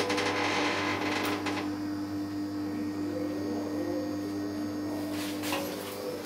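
KONE passenger elevator car standing at a landing with a steady mechanical hum. A whirring noise fades out over the first second or so, and a couple of short clicks come about five seconds in, as the hum stops.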